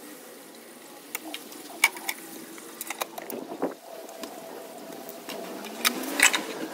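Metal automatic-transmission oil pan being worked loose and lowered by hand, with scattered clinks and knocks. The loudest clatter comes about six seconds in as the pan comes free. A faint steady hum runs underneath.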